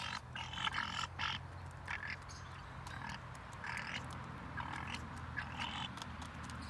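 Short, harsh bird calls repeating every second or so, mixed with sharp clicks of crane bills pecking food in a plastic bucket.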